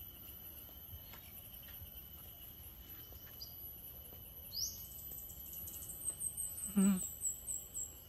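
Outdoor garden ambience: insects trill steadily at a high pitch throughout, and in the second half a bird gives a rising note and then a rapid run of high repeated notes, about six a second. Near the end a short, wavering lower call is the loudest sound.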